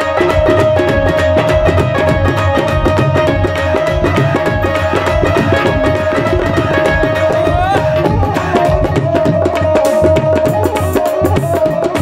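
Live Punjabi folk band playing an instrumental interlude: tabla and other hand drums beat a fast, busy rhythm under a sustained melody note, which slides upward in pitch about eight seconds in.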